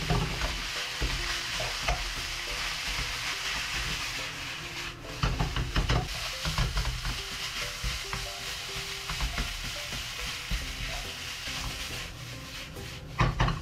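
Cold rice and leftover spicy pork stir-fry sizzling in oil in a nonstick wok, with a wooden spoon scraping and knocking against the pan as it is stirred. Near the end the sizzle drops as the wok is lifted and tossed, followed by a few louder knocks.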